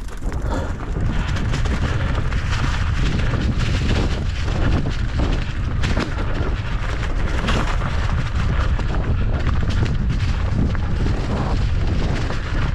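Mountain bike ridden fast downhill on a rough dirt trail: a loud, continuous low rumble of wind on the microphone, mixed with tyre noise and short rattles and clicks from the bike.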